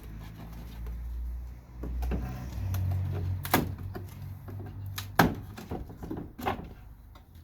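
Wooden beehive frames and boxes being handled during a hive teardown: several sharp knocks and scrapes of wood on wood, spaced a second or two apart, over a steady low rumble.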